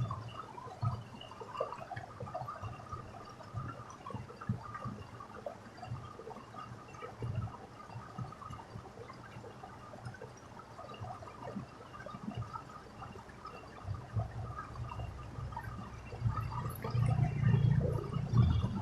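Water trickling and gurgling in an irrigation ditch, with scattered low thumps and a louder low rumble near the end.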